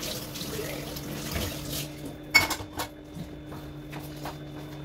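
Kitchen tap running into a stainless-steel sink as dishes are rinsed by hand. The water stops about two seconds in, then a dish clinks sharply, followed by a few lighter knocks of dishes being set down, over a faint steady low hum.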